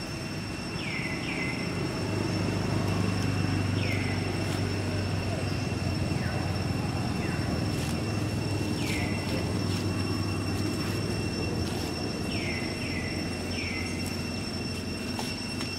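Outdoor ambience: a low rumble that swells through the middle and eases off, under a steady high-pitched whine, with several short falling chirps at irregular intervals.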